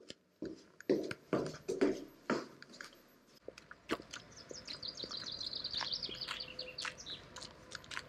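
Footsteps going down a stairwell, a few irregular knocks with some echo. Then, outdoors on a forest path, a songbird sings one long fast trill of many short high notes, starting about four and a half seconds in, over footsteps on the path.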